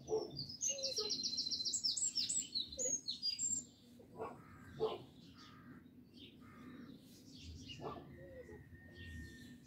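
Songbird singing: a fast, loud trill of high repeated notes in the first few seconds, then quieter scattered chirps and one held high note near the end. A few short knocks or clicks fall in between.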